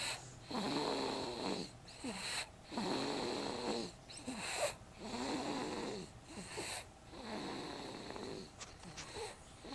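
Snoring in slow, regular breaths, one snore about every one and a half to two seconds, the last few fainter.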